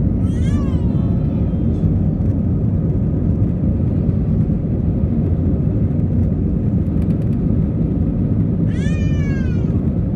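Steady low rumble of an Airbus A321's engines and rushing air, heard inside the cabin during the climb after takeoff. Twice, just after the start and again near the end, a short high cry falls in pitch over the rumble.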